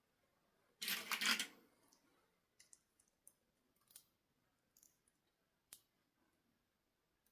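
A short burst of rustling about a second in, then a few small, sparse clicks and taps: plastic toy packaging and parts being handled.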